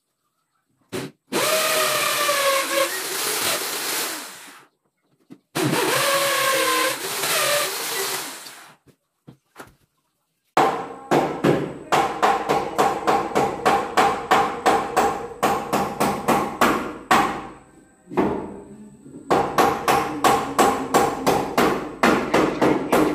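An electric drill boring into the wall in two runs of about three seconds each, its pitch sagging and rising as it bites. Then a hammer striking rapidly, about three blows a second, in two long runs with a short pause between.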